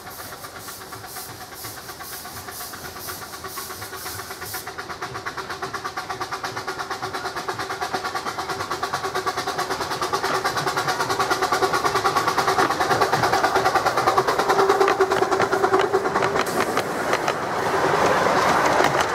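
Miniature coal-fired steam locomotive and its passenger coaches approaching and passing, with rapid, even exhaust beats and the clatter of the wheels on the track growing steadily louder as the train nears. It is loudest in the last few seconds, as the coaches go by.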